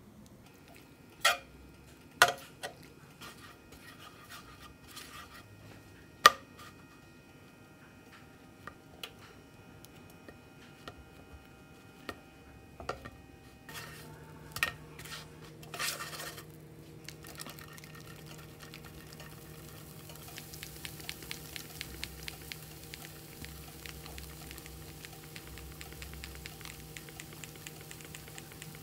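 Kitchen utensils clinking sharply a few times against a plate and pan, then a low steady hum sets in about halfway, with a soft, even sizzling crackle as bread and shredded cheese cook in a nonstick frying pan.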